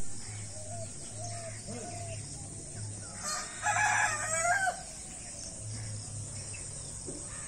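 A rooster crowing once, about three seconds in, a single long call that rises and then falls. Fainter short calls come before it.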